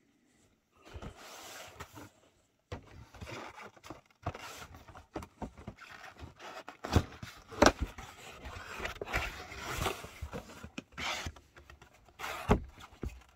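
Cardboard box being handled and shifted on a tabletop: scraping and rustling of the cardboard, with a few sharp knocks, the loudest about seven to eight seconds in.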